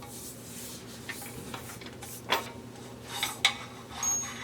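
Small, scattered metal clicks and taps as screws with washers are handled and started by hand into a steel frame, over a steady low hum.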